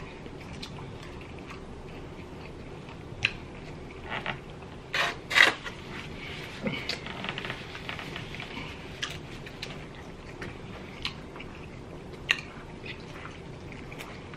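Eating noises from rotisserie chicken being torn apart by hand and chewed, with scattered sharp clicks and a louder sharp clatter about five seconds in. A crackly rustle follows, as a paper towel is wiped across a mouth.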